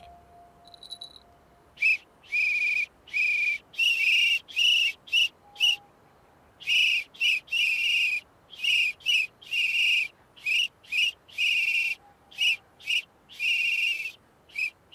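A hand whistle blown in a long series of short and long blasts, some brief toots and some held for about half a second, starting about two seconds in.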